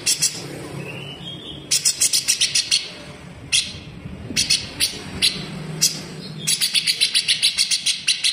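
Grey-cheeked bulbul (cucak jenggot) calling in rapid runs of rough, sharp clicking notes, the dense 'besetan' series. A cluster comes about two seconds in, short groups follow through the middle, and a long fast run starts about six and a half seconds in, over a faint low hum.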